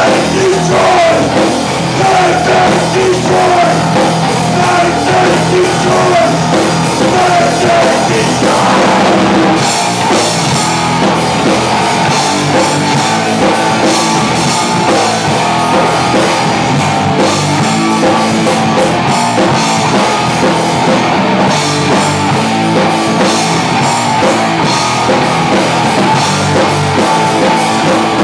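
A rock band playing live and loud: electric guitars, bass and a drum kit. About ten seconds in the drumming gets fuller, with more cymbal.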